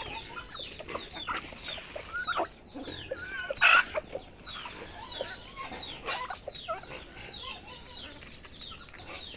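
Chickens clucking while feeding: a steady run of short, falling calls from several birds at once, with one loud, short squawk about three and a half seconds in.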